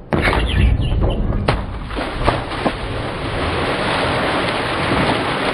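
Wind buffeting the microphone over choppy water, with a person dropping into the water with a splash and a few sharp knocks against the hull.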